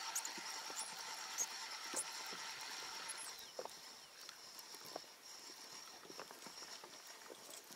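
Small waves lapping and knocking against the boat's hull in scattered small splashes. A steady whine runs through the first three seconds and then stops, with a few faint high chirps over it.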